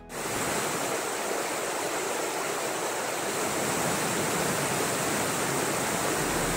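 Steady rush of a tall waterfall pouring onto rocks, with the rocky creek cascading below it.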